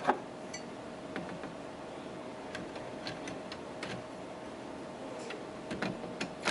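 Scattered light clicks and taps of computer parts being handled as a CPU heatsink is picked up and set down onto the processor on a bare motherboard, with a sharper click just after the start and a small cluster near the end. A faint steady hum runs underneath.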